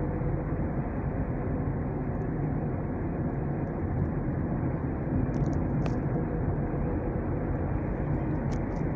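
Steady driving noise of a car heard from inside its cabin: an even rumble of engine and tyres on the road while the car is under way.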